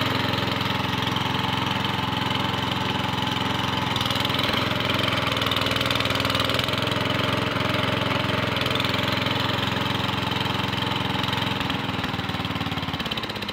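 Sears Suburban 15 garden tractor engine running steadily while the tractor pulls on a chain hooked around a bush. Its sound drops away a little before the end.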